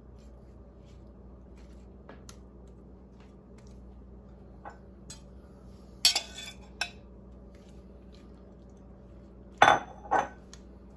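Metal kitchen knife scraping and clinking against a bowl while spreading olive relish, with a burst of scraping clinks about six seconds in and two sharp knocks near the end.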